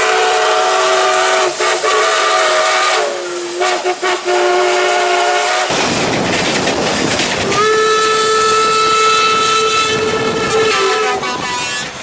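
Train whistle sounding a long multi-tone blast that dips slightly in pitch about three seconds in. A rushing noise follows for a couple of seconds, then a second long, steady blast.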